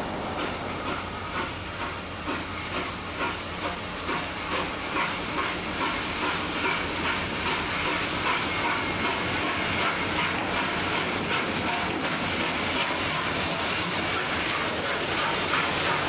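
Steam locomotive R707, a Victorian Railways R class 4-6-4, pulling away under steam with a steady loud hiss of steam escaping around its cylinders. Its exhaust beats come about twice a second and quicken until they blur together as it comes past.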